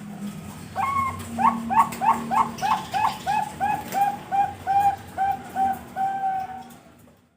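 Bangkok-type perkutut (zebra dove) singing its cooing song: a quick run of about fifteen short, evenly spaced notes that slow slightly and end in one longer drawn-out note.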